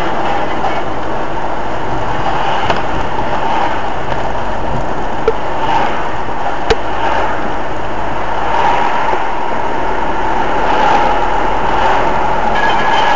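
Steady road and engine noise of a moving car, heard from inside the cabin, with a couple of short clicks about five and seven seconds in.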